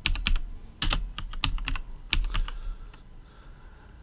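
Typing on a computer keyboard: a quick run of key clicks, uneven in spacing, that stops about two and a half seconds in.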